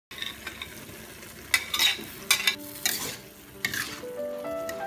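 A spatula scraping and tossing vegetables around a steel wok while they sizzle in the pan, in four or five separate strokes. Background music comes in softly toward the end.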